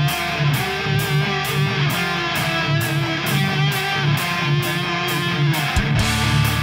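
Background music: a guitar-led track with a steady beat of about two strokes a second, briefly dropping its low end near the end.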